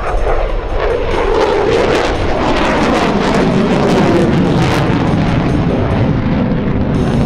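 Loud jet noise from an F-22 Raptor's twin F119 afterburning turbofans as the fighter flies past, the pitch of the rumble slowly falling over several seconds.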